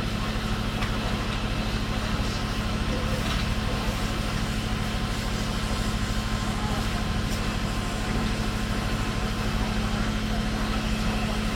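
A large vehicle's engine idling steadily, a constant low hum that never changes in level.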